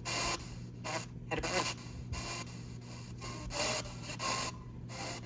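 Spirit box radio sweeping rapidly through stations, played through a small guitar amplifier. It gives choppy bursts of static several times a second, with brief snatches of broadcast sound, over a steady low hum.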